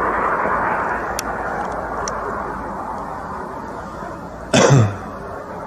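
A steady noisy rumble that slowly fades, then a single sudden loud bang about four and a half seconds in.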